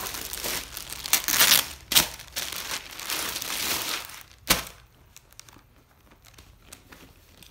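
Thin plastic bags crinkling and rustling as they are handled, loud for about the first four seconds, with two sharp knocks about two and four and a half seconds in. After that only faint, light rustles.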